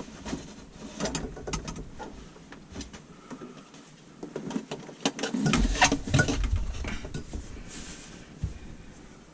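Clicks, knocks and clatter of tools and plumbing parts being handled under a kitchen sink, with a louder run of knocks and thuds about halfway through.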